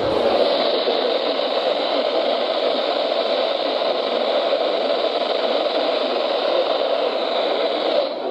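Steady radio static hiss from a weather radio receiver, an even band of noise with no voice or tone in it.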